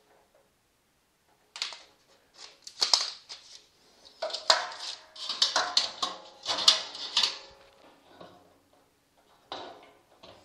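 Stainless-steel double honey sieve clanking and ringing as it is fitted onto a steel honey bucket: a run of metal knocks and scrapes, with one more knock near the end.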